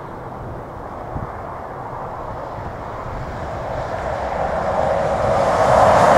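Jet engines of a Boeing 737-800, its twin CFM56 turbofans, running with a steady rushing roar that grows steadily louder from about halfway through as thrust builds for takeoff.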